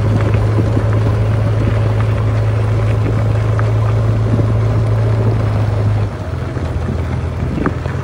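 JCB 3DX backhoe loader's diesel engine running steadily as the machine drives along, a loud low hum. About six seconds in the hum drops in level and changes tone.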